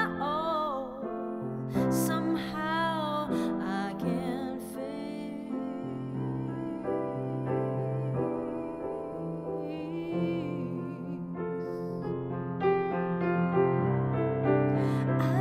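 Grand piano playing, with a woman singing held, wavering notes over it in the first few seconds; after that the piano carries on mostly alone, with a brief sung phrase again about two-thirds in.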